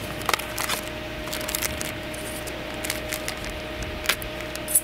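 Light clicks and scratchy ticks of small metal engine parts being handled and marked by hand, a connecting rod cap being marked with a thin tool, with two slightly sharper clicks near the end. A steady faint hum runs underneath.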